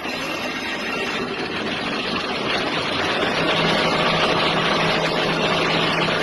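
Brass-cutting lathe running: a steady mechanical noise that grows louder over the first few seconds, with a low steady hum coming in about halfway through.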